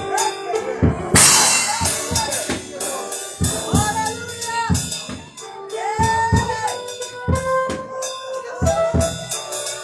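Live church worship band playing, with a drum kit beating out a steady rhythm and a cymbal crash about a second in, under sustained melodic notes.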